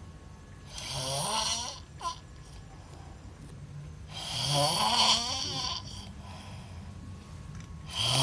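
A person snoring with lips pushed out in a pout. There are loud, rasping snores of about a second to a second and a half each, roughly every three and a half seconds, and the third begins near the end.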